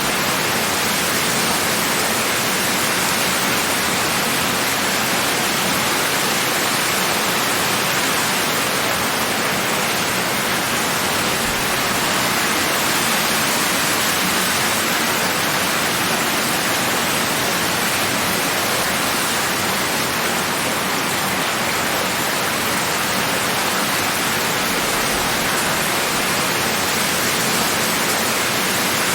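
Steady heavy rain, a dense even hiss without distinct drops or thunder.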